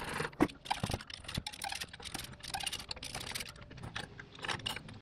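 A hand wrench clicking and clinking against the metal exhaust header and its bolts of a Yamaha YXZ1000R as the exhaust is unbolted: a quick, irregular run of small metallic taps and rattles, with a couple of louder knocks in the first second and a half.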